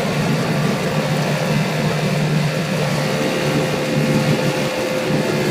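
Outboard motor of a small launch running steadily at cruising speed: a constant low drone with a faint steady whine above it, over an even rushing noise.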